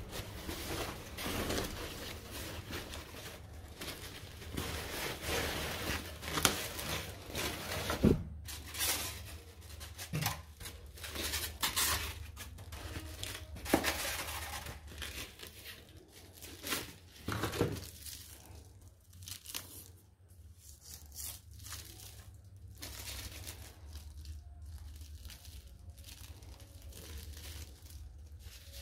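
Plastic packing foam and wrap crinkling and rustling as the padding is pulled off and handled, in irregular sharp crackles, loudest in the first half and quieter later.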